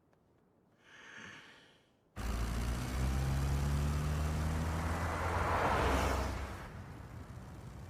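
A motor vehicle's engine and road noise starting suddenly about two seconds in, with a steady low hum that swells to a peak and then falls away to a lower, steady level, like a vehicle driving past.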